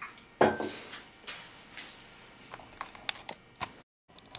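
Handling noise on a workbench: a knock about half a second in, then a run of small sharp clicks and taps near the end, cut off by a brief dropout.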